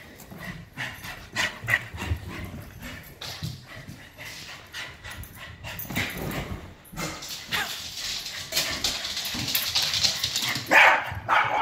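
Dogs barking and yipping in play, with scuffling and thumps as they race about; a stretch of rustling hiss fills the later part.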